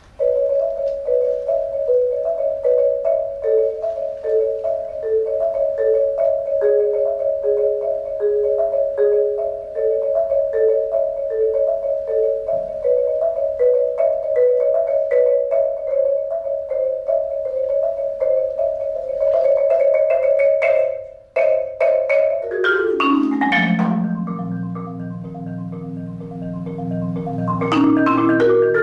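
Solo marimba played with mallets on a Yamaha concert marimba: a high note repeated steadily over a lower line that steps down note by note and back up. After a brief break about 21 seconds in, a fast run sweeps down into low held notes, and a burst of quick high notes comes near the end.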